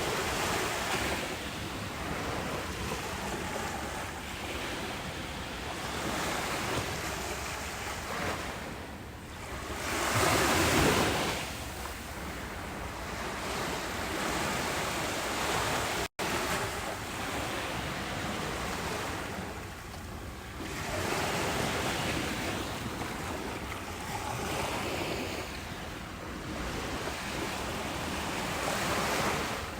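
Ocean waves breaking and washing up a beach, the surf swelling and ebbing every few seconds, with one louder break about ten seconds in. The sound cuts out for a split second just past halfway.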